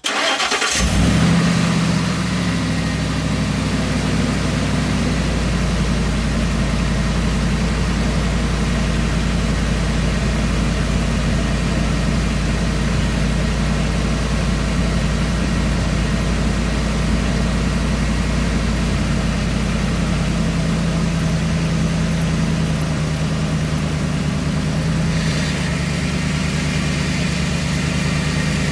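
A 2003 Ford F-150's engine starts and flares for a second or two, then settles into a steady idle. Some extra hissing noise joins near the end.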